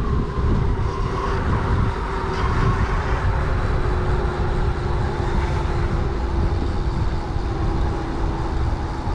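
Huck Cycles Stinger 3000 electric moped on the move, its motor giving a thin steady whine that sinks slightly in pitch as the bike eases off from about 18 to 16, under heavy wind rumble on the microphone and tyre noise.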